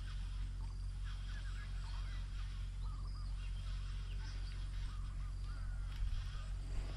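Birds calling: many short, arched chirps repeated in quick runs, with a few thinner, higher calls above them.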